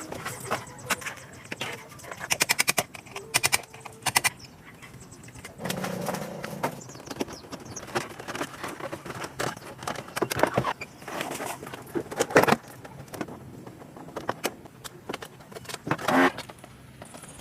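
Irregular clicks, knocks and small metallic rattles from hard parts being handled, with two quick runs of rapid ticks about two and three seconds in and a short scraping rasp near the end.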